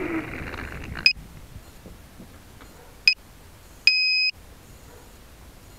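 Quadcopter motors winding down with a falling pitch, then high electronic beeps from the grounded drone: two short single beeps and then one longer beep.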